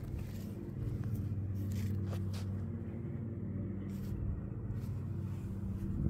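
Steady low hum of an engine running, with a few small clicks and rustles over it.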